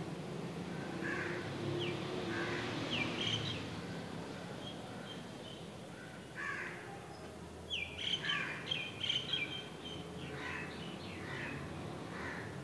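Birds calling in the background: clusters of quick high chirps about two to three seconds in and again around eight to nine seconds, with harsher, scratchier calls in between.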